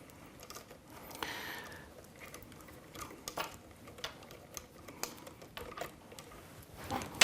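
Faint hand-handling noise of cables and small plastic and metal rig parts: scattered light clicks and taps, with a brief scratchy rustle about a second in and a sharper click at the very end.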